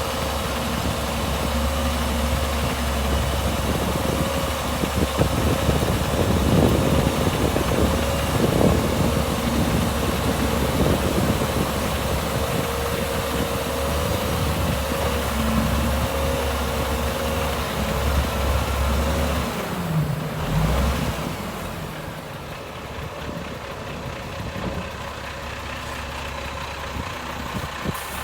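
Heavy diesel engine of earthmoving machinery running, with clattering knocks mixed in through the first half. About two-thirds of the way in the deep engine note drops away and the sound gets quieter.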